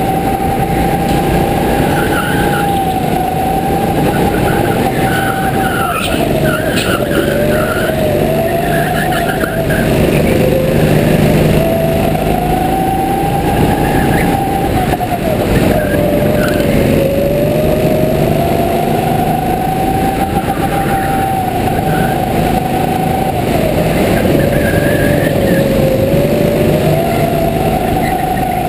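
Go-kart heard from on board, running hard around the track: a steady high whine that drops in pitch through each corner and climbs again on the straights, over loud rushing noise, with short tyre squeals now and then.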